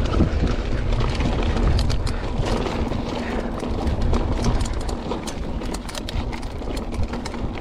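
Mountain bike riding down a rough dirt trail: a steady low wind rumble on the microphone, with a rapid run of clicks and rattles from the bike over the ground through the middle.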